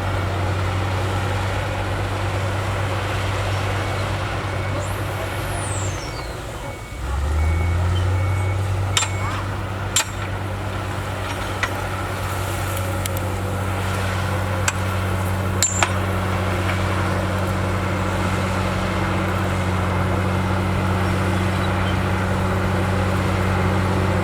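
Heavy earthmoving machine's diesel engine running steadily. About six seconds in it drops in pitch and level, then picks back up. A few sharp knocks come later.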